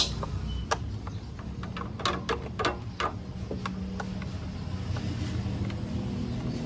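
A screwdriver clicking and tapping against a screw and the scooter's plastic panel: a cluster of sharp clicks over about three seconds, then it goes still. A steady low rumble sits underneath throughout.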